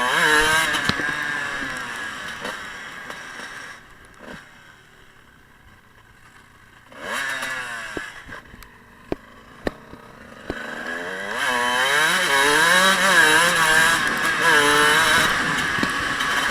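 Dirt bike engines revving up and down as the bikes ride: loud at first and fading away over the first few seconds, a short rev about seven seconds in with two sharp clicks soon after, then loud revving again from about eleven seconds on.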